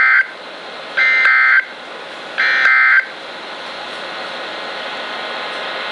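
Emergency Alert System end-of-message data bursts from NOAA Weather Radio. The end of one shrill two-tone digital burst is followed by two more, each under a second and about a second and a half apart, marking the end of the warning. Steady radio hiss follows them.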